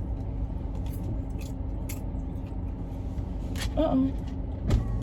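Steady low rumble with a faint hum inside a car, broken by a brief vocal sound about four seconds in and a sharp click near the end.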